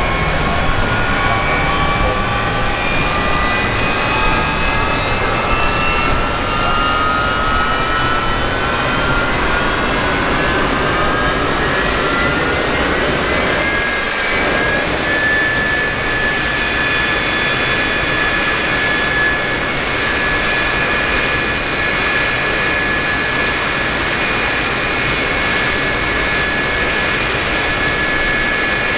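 General Electric J79 turbojet spooling up. Its whine rises in pitch over a steady rush of noise for about fifteen seconds, then settles into a steady high whine.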